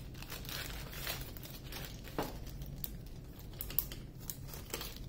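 Small plastic bags of diamond-painting drills crinkling as they are handled, with scattered light clicks and taps.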